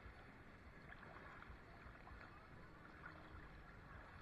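Faint water lapping and sloshing at the surface, an even low wash without distinct splashes.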